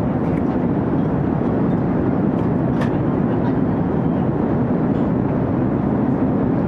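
Steady cabin noise of a jet airliner in flight, a constant low, even rush with no change in level. A single light click sounds near the middle.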